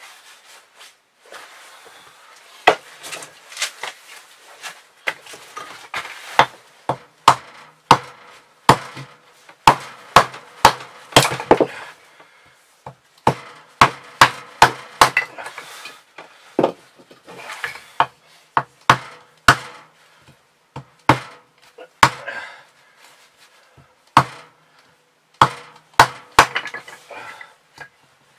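Hatchet splitting small pieces of firewood into kindling on a wooden chopping block: dozens of sharp, irregular wooden knocks, starting about three seconds in and coming in quick runs.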